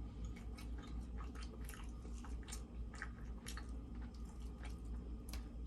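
A person chewing food close to the microphone, with many small mouth clicks and a louder click near the end, over a steady low hum.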